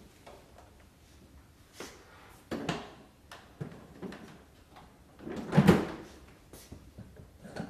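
A few separate knocks and clunks of things being handled and set down, the loudest a little past halfway through, with no motor running.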